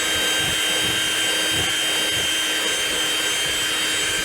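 Electric drill running steadily at one constant speed, its bit widening a screw hole in a polyurethane front lip so a rivet will fit.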